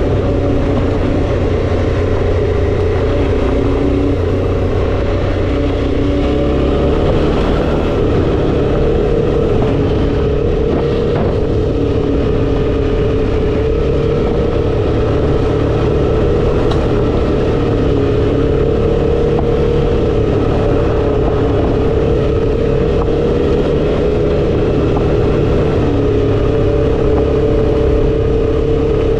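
Suzuki V-Strom 650 XT's V-twin engine running at a steady cruising pace on a gravel track, its pitch shifting only slightly, over a constant low rush of wind and tyre noise.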